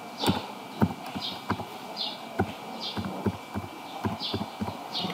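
Computer keyboard keys clicking as a phone number is typed digit by digit: about a dozen sharp taps at an uneven pace.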